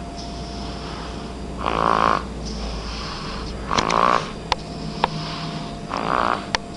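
Snoring in deep sleep: three short, fluttering snores about two seconds apart, with a few faint clicks between them.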